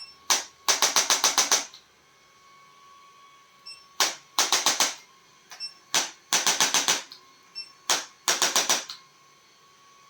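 Rapid runs of sharp mechanical clicks, about seven to a run at roughly eight a second, each run led by a single click; the runs come every couple of seconds.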